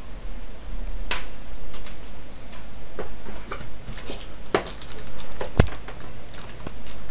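Clear plastic packaging bag crinkling and rustling as it is handled and opened, with scattered light clicks and one sharp click about five and a half seconds in.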